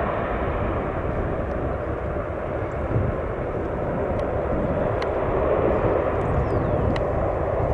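Saab 340's twin turboprop engines running at a distance as the airliner taxis, a steady droning noise that grows slightly louder in the second half.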